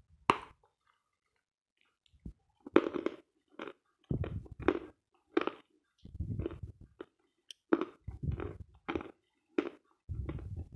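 A bite into a lump of dense, dry "Sloyka" edible chalk gives a sharp crack just after the start. Close-miked chewing follows, with a run of dry crunches roughly every half second to second.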